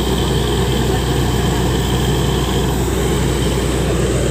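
Truck-mounted borewell drilling rig's engine running steadily, a constant loud low drone.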